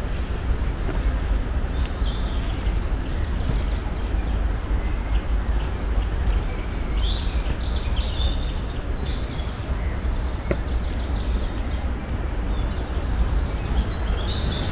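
Steady rushing roar of a waterfall, heavy in the low end, with small birds chirping over it repeatedly, most busily about halfway through and again near the end.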